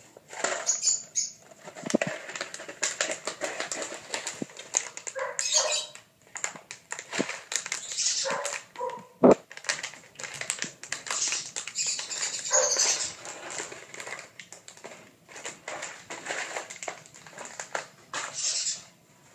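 Young puppies playing, giving short high yips and little barks, over a steady clatter of claws and toys on a tile floor. There is one sharp knock about nine seconds in.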